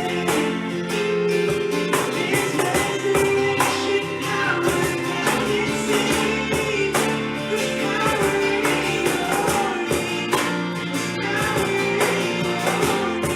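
Worship band music with a steady beat and singing.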